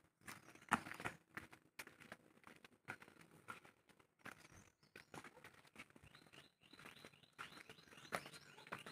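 Quiet, irregular footsteps on a damp stone path, with birds chirping faintly.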